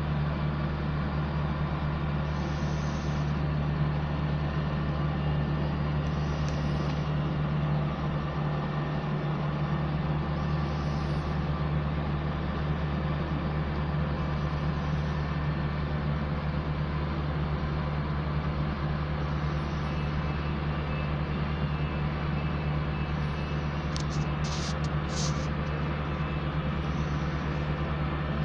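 Diesel engine of heavy road-paving machinery running steadily with a constant low hum. A faint high hiss comes back about every four seconds, and a few short high-pitched sounds come near the end.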